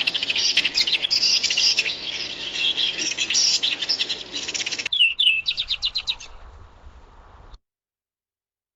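Birds chirping in a dense, overlapping chorus of high calls. About five seconds in it cuts to a quick series of falling chirps from one bird, which fade and stop.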